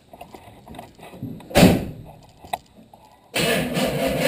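A truck door slams shut about one and a half seconds in, followed by a small click; near the end the GMC pickup's engine starts and runs loudly.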